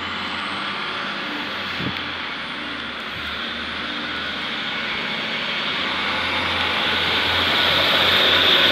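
Northern Class 156 Super Sprinter diesel multiple unit pulling out under power, its underfloor Cummins diesel engines running with a low hum and a hissing whine that grows steadily louder as the cars pass. A single knock comes about two seconds in.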